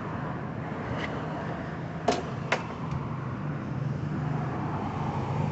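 Two sharp clicks about half a second apart, with a few fainter ticks around them, from the push mower's handlebar hardware as the wing nuts are undone and the bolts pulled out. A steady low hum runs underneath.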